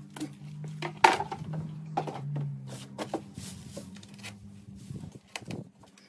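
Weeds and dry grass pulled up by hand: scattered rustling and crackling, with a sharp crack about a second in.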